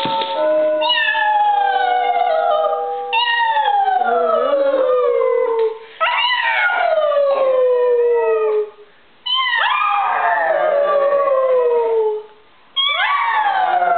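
A pug and a woman howling together: five long howls, each sliding down in pitch, with brief breaks between them.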